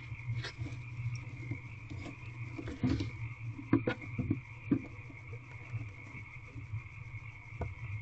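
A few knocks and rustles in wood shavings as a female barn owl shuffles down onto her eggs in the nest box, over a steady, pulsing background chorus of calling frogs.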